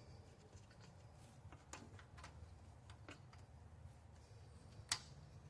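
Near silence with a few faint handling clicks and one sharper click about five seconds in, from the spark plug wire connector being pushed back onto the new plug.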